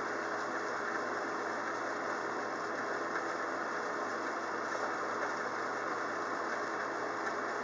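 Steady rain falling during a thunderstorm, an even hiss with no thunderclaps.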